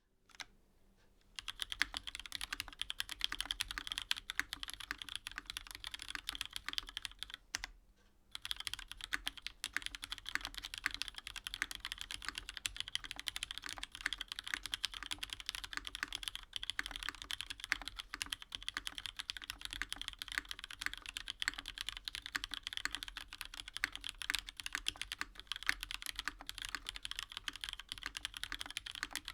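Continuous fast typing on a Kage TKL mechanical keyboard with vintage Cherry MX Black linear switches, lubed and filmed, under GMK keycaps: a dense run of keystroke clacks. The typing pauses briefly twice, about a second in and again around eight seconds in.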